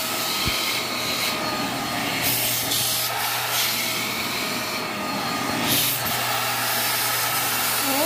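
Corded Deerma handheld vacuum cleaner running steadily, its motor hum and whine constant while the narrow crevice nozzle sucks dust from a sliding-door track; the rush of air rises and falls as the nozzle moves along. A light knock about half a second in.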